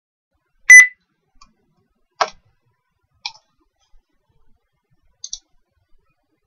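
Computer mouse clicking: a loud click about a second in, single clicks at about two and three seconds, and a quick double click near the end.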